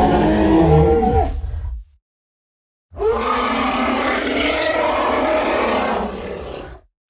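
Rancor creature sound effect: two roars. The first lasts about two seconds and drops in pitch as it fades. After a short silence comes a longer, rougher roar of about four seconds.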